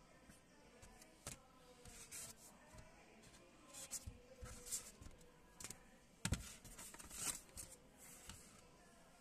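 Faint handling of a stiff printed card and a folded paper leaflet: scattered rustles and light taps, with one sharper knock about six seconds in.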